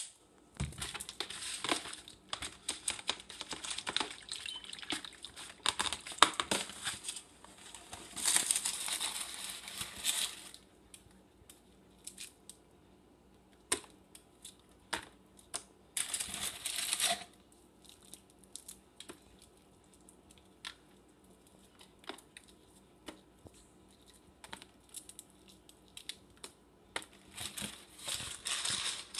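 Plastic bag crinkling and rustling as it is handled, in stretches: a long one for much of the first ten seconds, a short one around sixteen seconds in, and another near the end, with scattered light clicks and knocks between.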